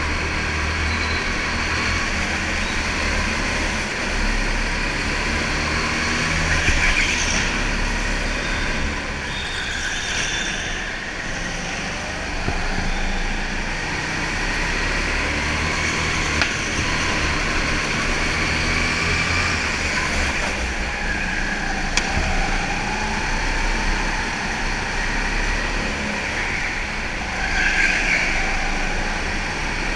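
Sodikart rental go-kart running at racing speed on an indoor track, its motor note rising and falling through the corners, with other karts running close by. A few brief louder moments stand out, one near the end.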